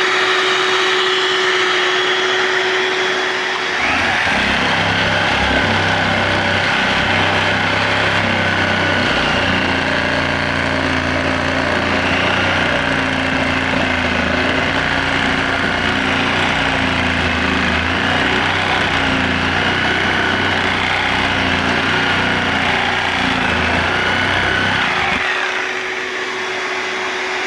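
Corded electric power tools running: a steady motor whine, joined about four seconds in by a second, lower-pitched tool that runs for about twenty seconds and then stops.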